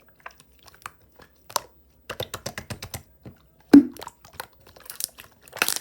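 Clear slime being pressed and poked by hand, giving a run of short sharp clicks and crackles, with one louder, deeper pop about two-thirds of the way in.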